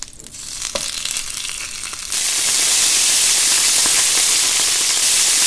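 Thick bone-in tomahawk steak sizzling on a hot griddle. A soft hiss with one tap about a second in jumps suddenly to a loud, steady sizzle about two seconds in, as the meat goes down flat on the hot surface.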